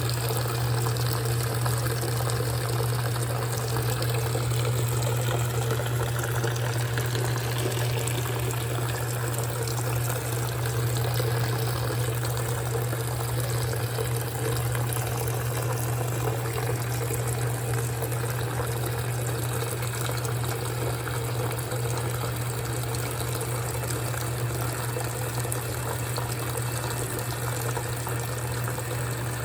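GE top-loading washing machine running mid-cycle with its lid up: a steady motor hum under the sound of water moving in the tub.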